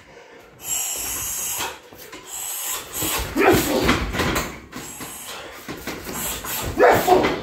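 A man breathing hard, with loud ragged gasps of breath, winded from hard heavy-bag work.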